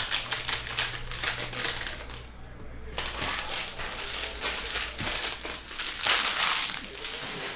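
Crinkling and crumpling of plastic trading-card pack wrappers being handled. It comes in dense, irregular rustling, with a short lull about two and a half seconds in, and is loudest about six seconds in.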